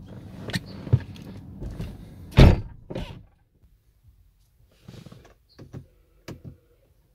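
Mechanical clicks and knocks from a car's doors and fittings being worked, with one heavy thunk about two and a half seconds in. A low hum under them cuts out about three seconds in, followed by a few quieter clicks.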